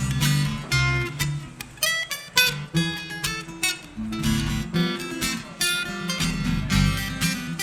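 Acoustic guitar strumming and picking an instrumental break in a folk song, with a bass line underneath.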